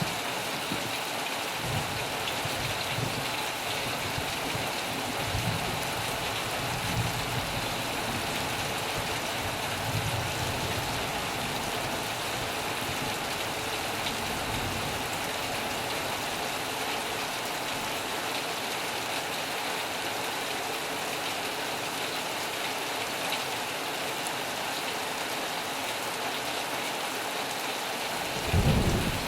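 Heavy rain on a metal roof, a dense steady hiss. A louder low rumble of thunder comes in near the end.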